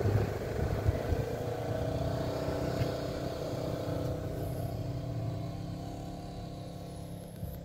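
Car engine running at low speed as the vehicle rolls along a dirt track, heard from inside the cabin; the steady engine note slowly gets quieter.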